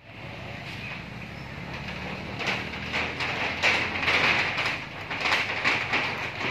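Irregular knocks and rattles of a corrugated metal roof as monkeys walk and jump across it, starting a couple of seconds in and growing busier, over a steady high hiss.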